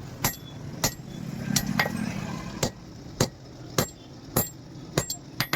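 Hammer blows on steel, struck at an even pace of a little under two a second, each a sharp ringing clink, over a steady low hum.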